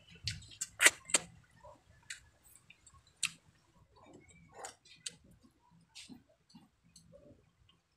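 Close-miked chewing of a mouthful of food eaten by hand: wet mouth smacks and sharp clicks every half-second or so, the loudest about a second in.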